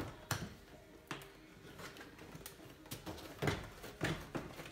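Plastic door-panel retaining clips popping loose and trim creaking as the interior door panel is pulled away from the door: a scattered series of sharp clicks and knocks, the loudest ones near the end.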